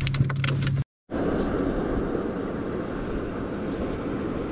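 A few sharp clicks over a steady low hum, broken off by a moment of silence about a second in; then an even, steady rushing noise for the rest.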